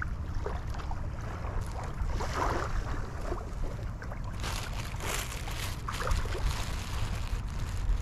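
Wind buffeting the microphone at the seashore, a steady low rumble, with a few scattered light clicks and a stronger gust of hiss about halfway through.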